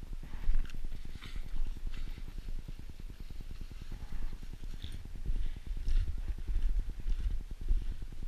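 Snowshoe footsteps crunching in snow at a steady walking pace, about one step a second, over a constant low rumble on the microphone.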